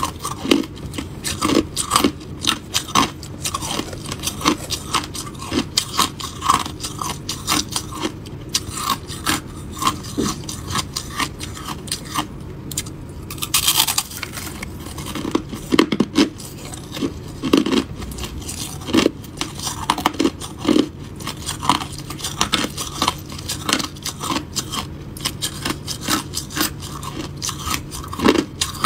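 Crushed ice bitten and chewed close to the microphone: a dense, continuous run of crisp crunches and cracks, with a brief scraping rustle about halfway through.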